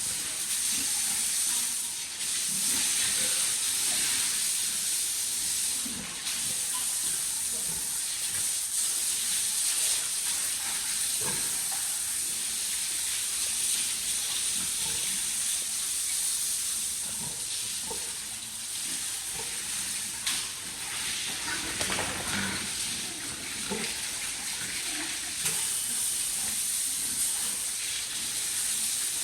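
Steady hiss of a water spray hosing down a pig pen, with faint scattered knocks and low sounds underneath.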